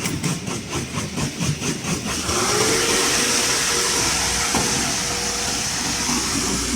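Concrete mixer pump running: a rhythmic chugging about four beats a second, then about two seconds in a steady whine that rises and levels off over a hiss.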